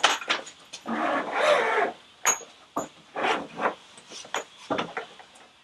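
A hard-shell carry-on suitcase being handled on top of a cardboard box: a scraping rub about a second in, and a run of short knocks and clicks from the shell and its fittings.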